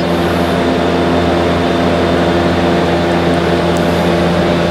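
A machine's motor running steadily: a constant hum of several tones with an even rushing noise over it.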